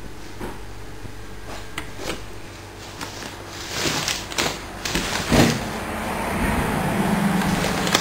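Clicks of switches being worked on a handheld remote control, then handling and rubbing noises with a loud knock about five seconds in, and a steady low hum that comes in about six seconds in.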